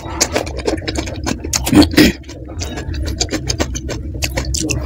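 Close-miked chewing of panipuri: the crisp fried puri shell and raw green chilli crunching and crackling in the mouth, a rapid run of sharp crunches with a louder burst about two seconds in.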